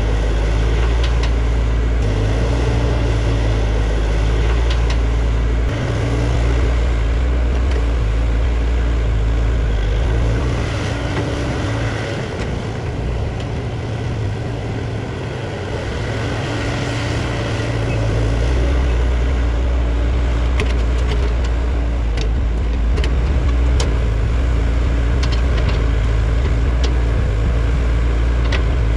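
JCB JS205 tracked excavator's diesel engine running under working load, easing off for several seconds in the middle before picking back up. A few sharp knocks come through in the second half.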